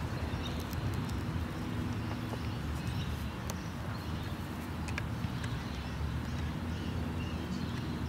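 Scattered sharp clicks and crunches of a long-billed corella's beak digging into dry grass and soil, over a steady low rumble.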